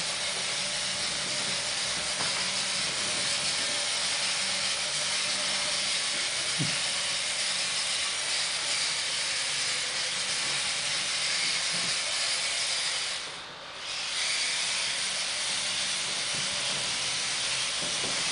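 3D-printed InMoov humanoid robot's motors turning its body around, a steady hissing whir that briefly drops away about 13 seconds in.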